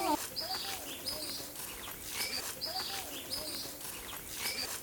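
Birds calling: a low, arching call repeated about once a second, mixed with short high chirps, over a faint steady outdoor hiss.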